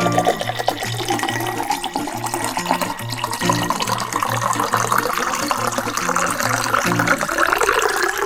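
Background music with a steady, evenly repeating bass figure, overlaid by a rushing, hissing noise that stops near the end.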